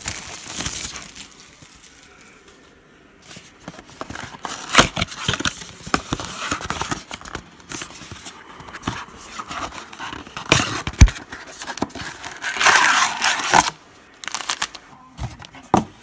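A cardboard trading-card blaster box being torn open and the plastic-wrapped card packs inside handled: irregular tearing, rustling and crinkling with scattered sharp clicks, and a longer, louder crinkle near the end.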